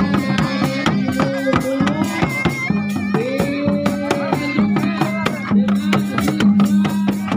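Traditional procession music: fast, dense drumming under a wavering melodic line, with a steady low tone underneath.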